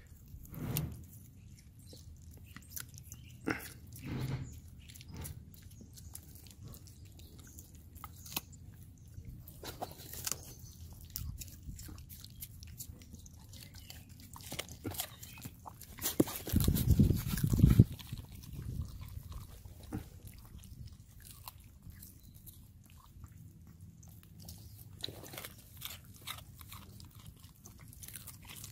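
Chihuahuas and a husky biting and chewing raw green vegetable stalks held out by hand, with scattered crisp crunches and clicks. A louder low rumble lasts about a second, a little past the middle.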